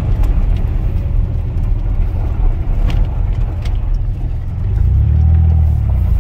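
Ford truck driving on a gravel road, heard from inside the cab: steady engine and tyre rumble with a few light clicks. About five seconds in the rumble grows louder and steadier as the truck speeds up after a turn.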